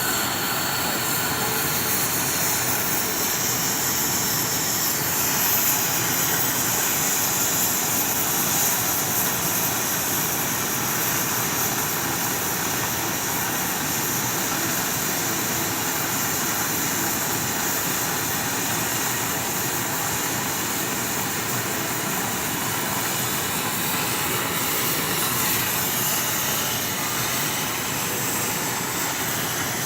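Electromagnetic pipe-cutting machine cutting through high-pressure pipe: a steady, even hissing roar with no clear tone, holding at the same level throughout.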